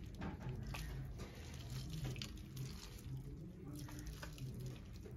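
Liquid dripping and trickling into a steel pot as a cloth bundle of crushed crab is squeezed out by hand, with small wet splashes: crab juice being strained out for a curry.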